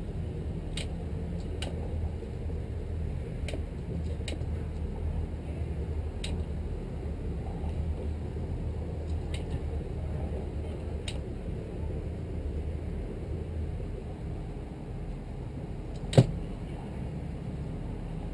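1998 Sea Ray 330 Sundancer's engines idling with a steady low rumble that eases a little near the end, with scattered light ticks and one sharp knock about sixteen seconds in.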